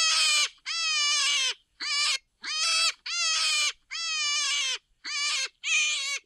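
Rabbit squealing: a string of about nine high-pitched squeals, each under a second long and dropping in pitch at its end, with short gaps between them.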